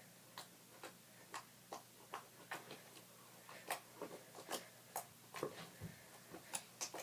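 Clear homemade slime being squeezed and kneaded in the hands, giving a run of faint sharp clicks, about two or three a second.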